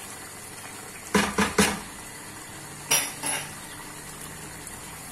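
A kitchen utensil knocking and clinking against a stainless-steel cooking pot. There are three quick knocks a little over a second in and two more about three seconds in.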